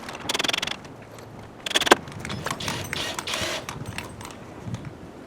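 A cordless driver running in short bursts, driving screws into 1x boards, with the clatter of boards being handled between the bursts.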